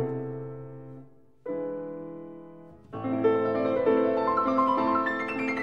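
Background piano music: sustained chords that fade away, break off briefly twice, and start again.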